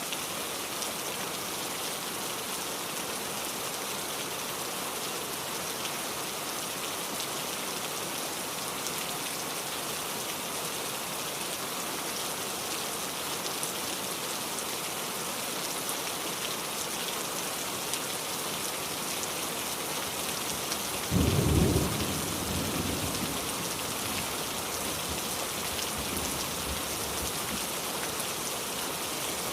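Heavy rain falling steadily. About two-thirds of the way through, a sudden low thunderclap lasting about a second is the loudest sound, and it rumbles away over the next couple of seconds.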